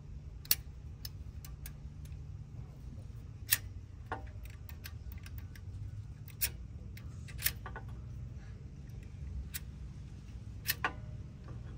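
About a dozen irregular small sharp clicks and taps of metal parts as a replacement carburetor and its throttle linkage are handled and set in place on an Onan generator engine, over a steady low hum.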